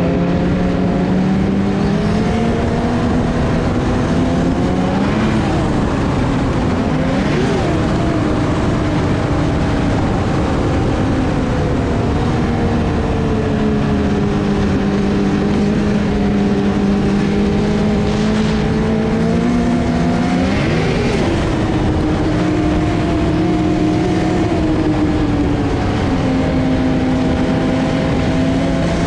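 BRP Rotax 900 ACE Turbo snowmobile engine, a turbocharged three-cylinder four-stroke, running under way. Its pitch rises and falls with the throttle, with quick surges about five, seven and twenty-one seconds in.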